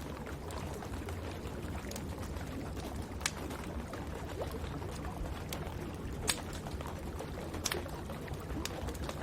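Wood fire crackling in a fireplace, with scattered sharp pops, three of them louder, over a steady rush of rain.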